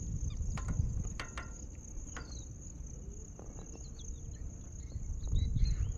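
Crickets trilling steadily, a continuous high-pitched tone, over a low uneven rumble, with a few faint short chirps.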